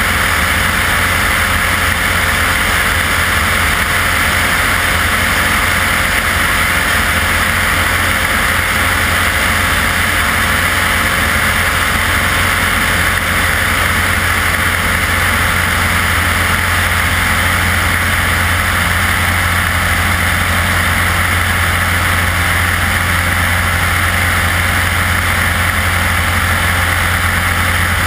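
Propeller aircraft engine running steadily in flight, with a deep hum under a broad rush of wind and propeller noise. The sound holds unchanged throughout.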